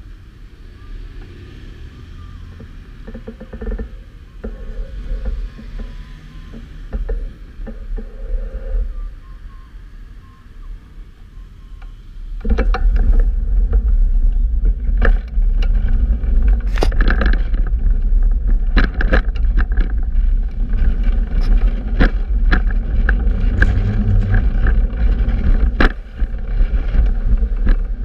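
Wind buffeting the microphone of a camera on a fixed-gear bicycle riding in city traffic, with a low rumble of traffic and road. About halfway through it turns much louder and heavier, peppered with sharp knocks and rattles.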